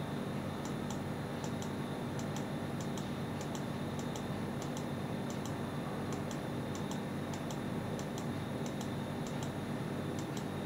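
Light mechanical ticking in evenly spaced pairs, about three pairs every two seconds, over a steady low hum.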